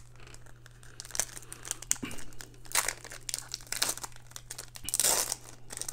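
Foil wrapper of a Pokémon TCG booster pack crinkling and being torn open by hand: a run of crackles, with louder tearing bursts about three, four and five seconds in.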